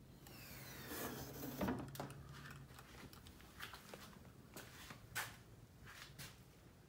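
Faint rustling and clicking handling noise as the camera is moved about, with a low steady hum under the first couple of seconds.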